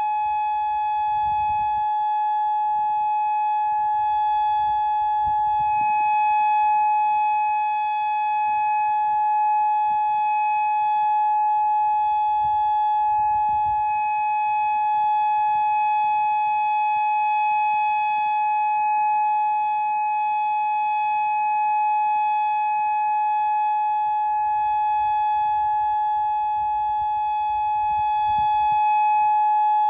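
Modulator 6024 electronic outdoor warning siren sounding a steady tone, held at one pitch with no rise or fall.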